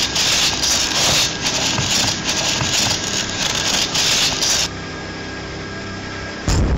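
Gritty scraping and rustling of sand and gravel being clawed through in uneven strokes, as a hand digs up out of a grave. The scraping stops about two-thirds of the way in, leaving a quieter steady hum, and a deep boom hits right at the end.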